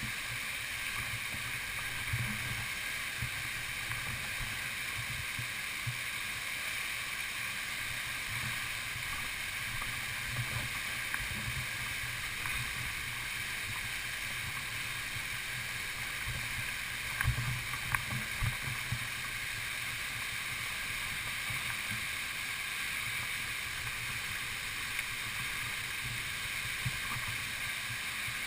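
Steady rushing of running stream water, with scattered low thumps on the microphone.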